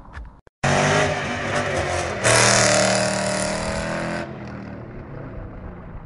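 Sports car engine running hard under throttle. It cuts in suddenly, gets louder about two seconds later, then falls away over the last couple of seconds.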